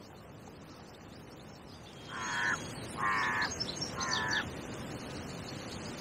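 A crow cawing three times, about a second apart, starting about two seconds in.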